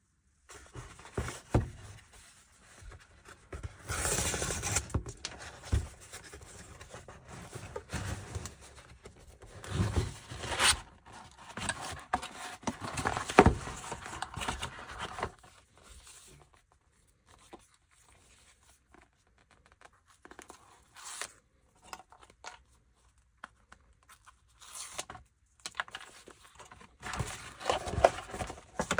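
A cardboard shipping box is opened by hand. There is a tearing burst about four seconds in and another near ten seconds, then cardboard flaps rustle and scrape, with a sharp knock about thirteen seconds in. After a quieter stretch, a boxed phone is slid out of its cardboard insert with more scraping near the end.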